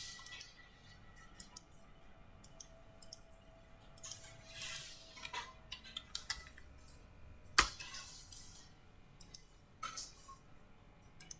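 Scattered mouse clicks and small knocks from handling at a computer desk, with one louder knock about two-thirds of the way in.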